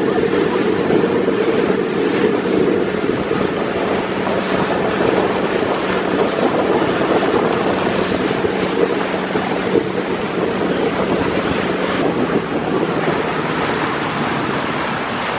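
Speedboat under way: a steady rush of water and spray off the hull, with wind buffeting the microphone over a low engine hum. The engine hum drops away a few seconds before the end.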